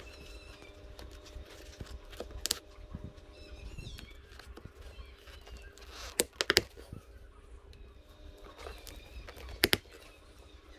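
Sharp clicks over a low steady hum: one about two and a half seconds in, a loud quick pair a little past the middle, and one near the end.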